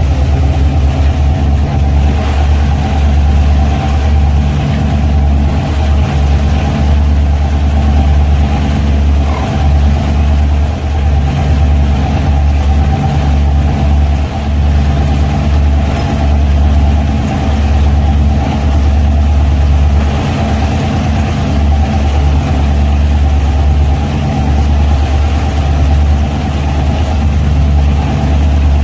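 Twin inboard gasoline engines of a 1978 Carver 28 cabin cruiser running under way: a steady low drone, with the rush of wind and water over it.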